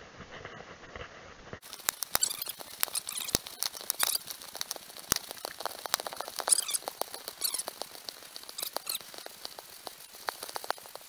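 Rapid, irregular clicks, crackles and scratchy squeaks: handling noise from a small handheld camera carried while walking over grass.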